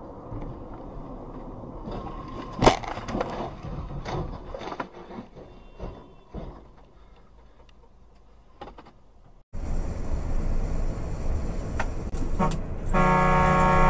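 Dashcam recording of a motorway crash: one sharp impact about three seconds in, then scattered knocks and clatter dying away. After a cut comes steady lorry cab noise, and near the end a long, loud blast of the lorry's horn.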